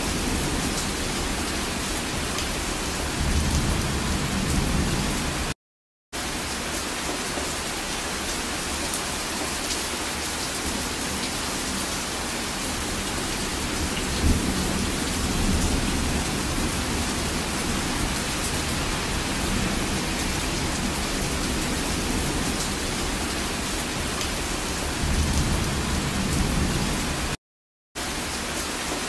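Heavy rain falling steadily, a dense even hiss, with a low rumble swelling and fading three times. The sound cuts out completely twice for about half a second.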